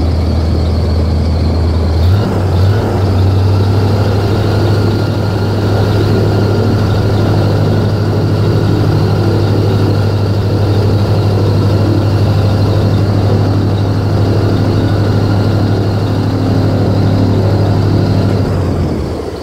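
Airboat engine running steadily at speed, with a loud low drone that steps up in pitch about two seconds in and drops away near the end.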